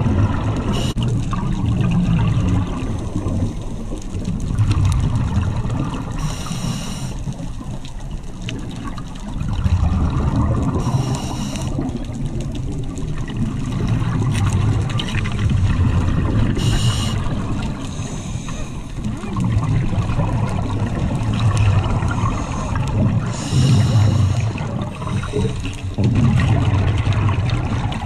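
Scuba diver breathing through a regulator, heard underwater: a short hiss on each inhale, recurring every five to six seconds, with bubbling exhales in between.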